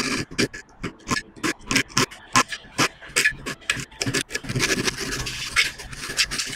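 Junior hacksaw cutting a 12 mm aluminium rod at a 45-degree angle in a 3D-printed miter box. Short rasping strokes come in a quick, even rhythm and run together into a steady rasp for about a second and a half near the end.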